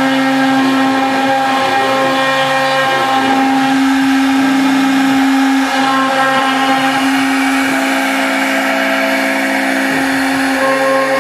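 CNC router spindle running with a steady whine as its bit engraves lettering into a hardwood board. Lower machine tones under the whine switch on and off every second or two as the machine moves.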